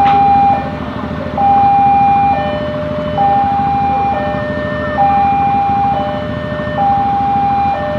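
Railway level-crossing warning alarm sounding its two-tone signal, a higher and a lower tone alternating, each held just under a second, the sign that a train is approaching and the barrier is down. A steady low rumble of traffic runs underneath.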